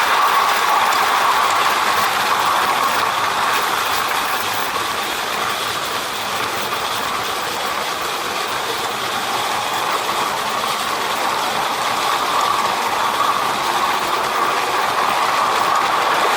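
A 16mm-scale live-steam garden railway train running along its 32mm-gauge track: a steady running noise of wheels and steam, a little quieter in the middle.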